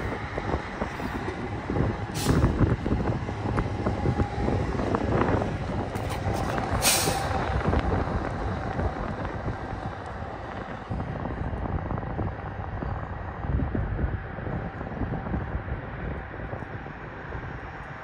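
Exo commuter train's bilevel coaches rolling slowly past, a low rumble with wheel clatter, with two brief hisses about 2 and 7 seconds in and a faint high squeal coming and going.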